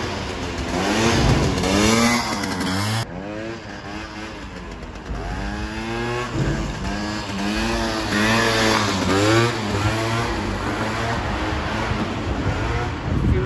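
Piaggio Zip scooter with a swapped-in 125cc Runner engine revving hard, its pitch rising and falling over and over as the throttle is opened and eased off.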